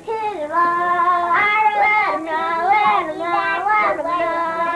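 A young girl singing, holding long, slightly wavering notes with short breaks between them.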